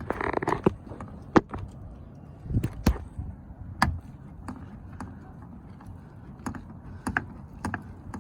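Irregular sharp clicks and light knocks of hands and a tool working on a car door speaker and its mounting screws, with a brief rustle of handling at the start.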